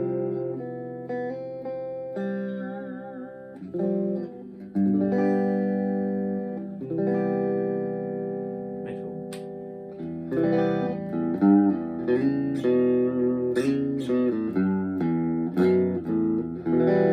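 Chapman ML1 Traditional Strat-style electric guitar played clean and dry, with no reverb, through a Blackstar HT1-R valve amp. Ringing chords, some held with vibrato, give way to quicker picked notes about ten seconds in.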